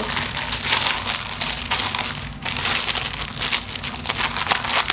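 A thin plastic packaging bag crinkling and rustling in irregular bursts as it is handled and pulled off a pair of shark slides.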